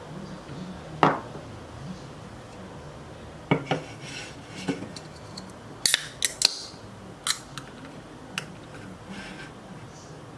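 Dishes and cutlery being handled: a series of sharp clinks and knocks, several close together in the middle.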